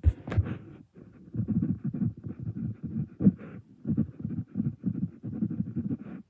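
A few sharp knocks at the start, then a run of muffled, irregular low thuds, about two or three a second.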